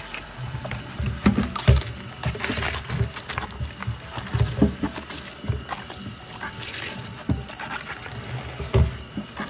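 Tap water running onto a head of cabbage in a plastic colander in a steel sink while hands rub and turn the wet leaves, with irregular knocks and handling noises throughout.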